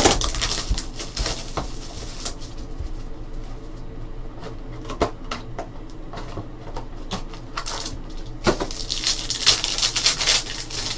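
Hands opening a box of basketball trading cards: cardboard handling with scattered clicks and taps, then, near the end, a cellophane-wrapped card pack crinkling as it is torn open.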